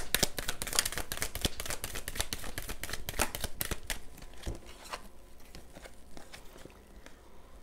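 Hands shuffling a deck of tarot cards: a quick, dense patter of card edges slapping and rustling for about four seconds, then thinning out and getting fainter toward the end.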